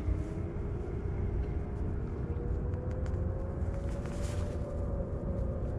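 A distant engine droning over a steady low rumble, its pitch rising slowly around the middle, with a few faint clicks.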